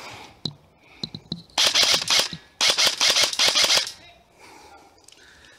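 Airsoft electric rifle firing two rapid full-auto bursts, each about a second long, the first starting about a second and a half in and the second right after it, with a few fainter single clicks before them.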